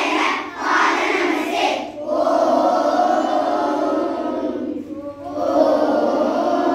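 A group of children and adults chanting a devotional prayer in unison: a few short, forceful phrases, then two long held notes of a couple of seconds each.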